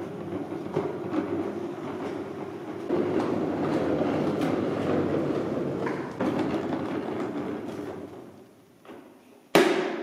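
The plastic wheels of a wheeled portable car refrigerator rolling across a smooth painted concrete parking-garage floor, a steady rumble that fades out after about eight seconds. Near the end comes a single sharp knock.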